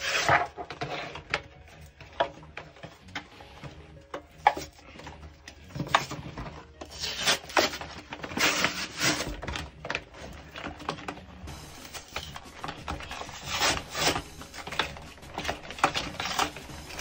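Cardboard-and-plastic blister packaging of Pokémon trading-card packs being torn and peeled open by hand: irregular rips, crinkles and rustles.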